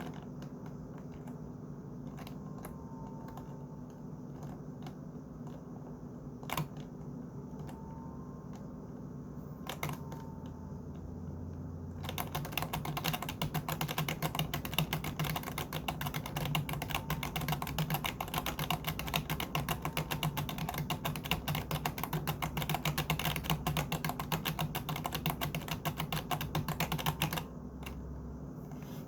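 Computer keyboard keys clicking: a few scattered single key presses at first, then from about twelve seconds in a long run of fast, continuous typing that stops shortly before the end. A steady low hum sits underneath.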